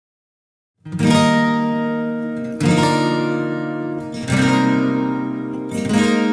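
Background music: acoustic guitar chords strummed and left to ring, four strums about a second and a half apart after a short silence.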